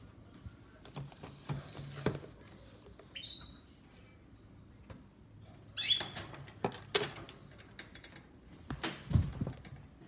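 A canary gives a short chirp about three seconds in and another near six seconds. Around them come clicks and knocks of a wire cage and a plastic jar being handled, the loudest a thump a little after nine seconds.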